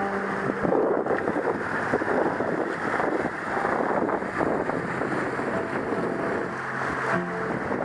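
Wind buffeting the microphone and water rushing along the hull of a trimaran under sail, a gusty, uneven noise. A faint low hum comes in briefly near the end.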